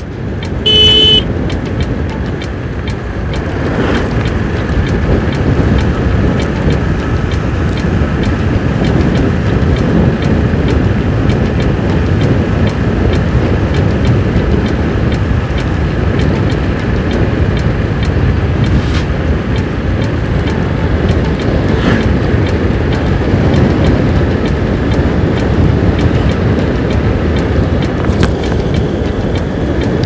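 Motorcycle riding steadily at speed: wind rushing over the microphone with engine and road noise. A short horn beep sounds about a second in.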